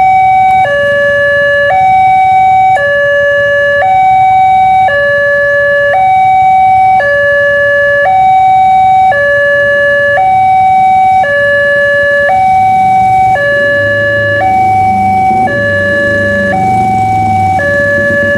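Electronic railway level-crossing alarm from the crossing's horn loudspeaker: a loud two-tone warning that alternates between a higher and a lower tone about once a second, signalling that a train is approaching. A low rumble builds underneath from about two-thirds of the way in.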